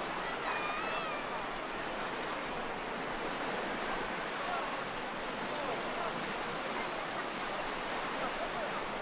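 Sea surf on a beach: a steady rush of waves, with faint, distant people's voices over it.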